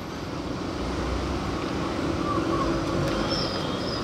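1997 Honda Civic moving off slowly on a test drive, its engine and tyre noise building up and then holding steady. Near the end a faint high-pitched squeal comes in, the little noise the owners put down to the brake disc's dust shield rubbing.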